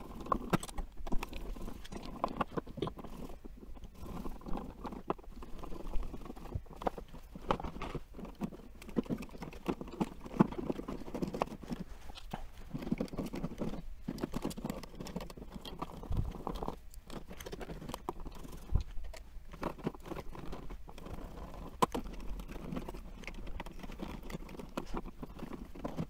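Stiff electrical wires and plastic wall switches being crammed back into a crowded wall electrical box: irregular scraping, crackling and small clicks of plastic and wire, with a screwdriver at the switch mounting screws.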